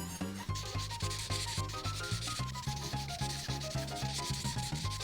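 Prismacolor marker rubbing quickly back and forth on paper as an area is colored in, with light background music.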